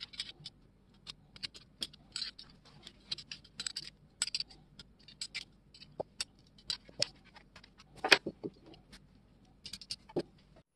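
Irregular small metal clicks and clinks from the steel blades, pivot and fittings of a vintage three-blade Shear Magic grass shears being handled and fitted together, with one louder knock about two-thirds of the way through.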